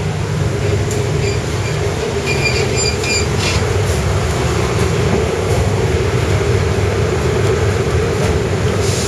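Train running along the track, heard from on board: a steady rumble, with a few brief high-pitched squeals about one to three seconds in.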